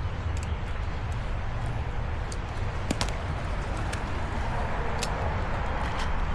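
Steady low outdoor rumble, with a few sharp clicks and ticks scattered through it. The loudest click comes about three seconds in.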